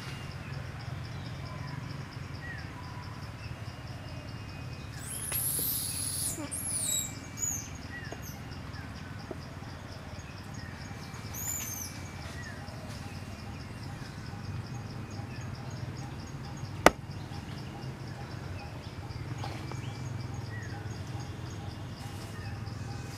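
Forest ambience: an insect trilling steadily, with a scattering of bird chirps and whistles, loudest about five to seven seconds in. A single sharp click about seventeen seconds in.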